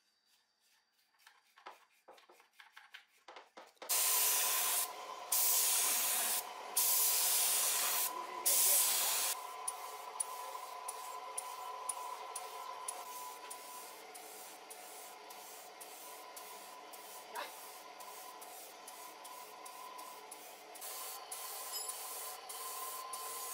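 A few light scrapes as softened old paint is scraped off a chainsaw housing, then a paint spray gun hissing: several long, loud blasts, followed by a quieter, steadier spray in short pulses over a constant hum.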